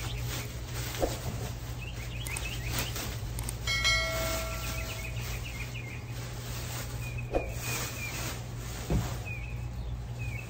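Plastic wrap rustling and a few light knocks as a plastic-wrapped metal chair frame piece is handled and unwrapped, over a steady low hum, with small birds chirping. About four seconds in, a short pitched tone rings for just over a second.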